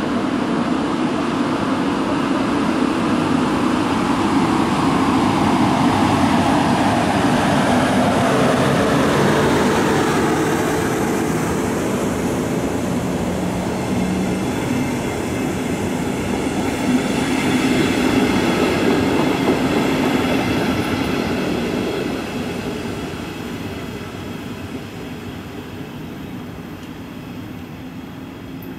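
Regional express train, a DB class 112 electric locomotive hauling double-deck coaches, moving off and running close past with electric motor whine and the rolling of wheels on rails, then fading as it draws away near the end.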